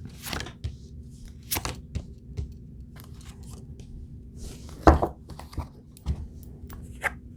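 Tarot cards being dealt out and laid down on a table: a series of sharp snaps and taps as each card is flipped and placed, the loudest about five seconds in.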